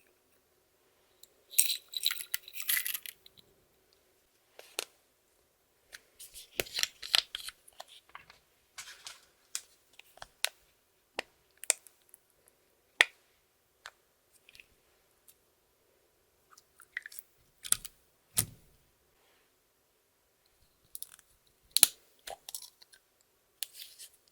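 Sharp crackles and clicks in irregular short clusters, separated by quiet gaps, from hands working makeup and clear slime.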